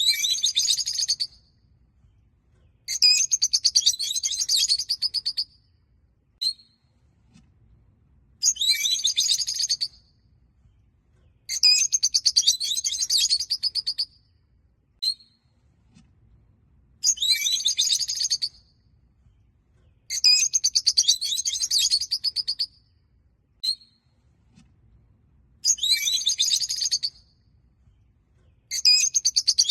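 Rosy-faced (peach-faced) lovebirds chattering in high-pitched bursts of rapid chirps, each burst lasting about two seconds and coming roughly every three seconds, with single short chirps in the gaps.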